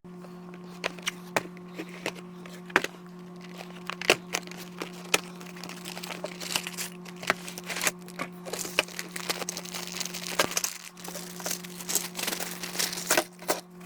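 Toy train packaging being opened, played in fast motion: rapid crinkling of plastic and quick clicks and snaps of cardboard, over a steady low hum.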